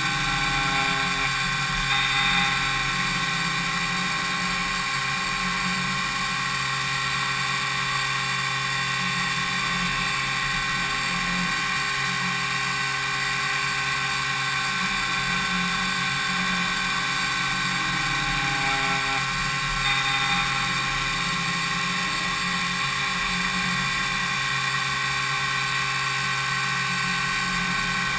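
DMU 70V five-axis CNC milling machine's spindle running at high speed as the cutter machines impeller blades: a steady whine of many tones at once, with brief swells about 2 and 20 seconds in.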